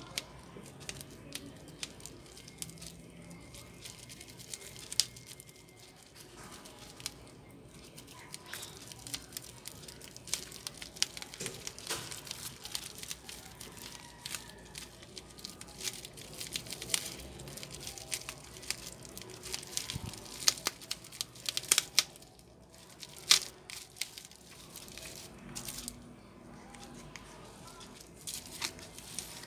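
Plastic film and bubble wrap crinkling and crackling under hands working on a phone, with many small sharp clicks that come thickest in the second half and peak a little past three quarters of the way through.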